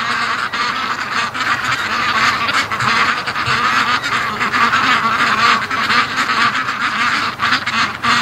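A large flock of domestic ducks, mostly white Pekins, quacking all at once in a dense, overlapping chorus.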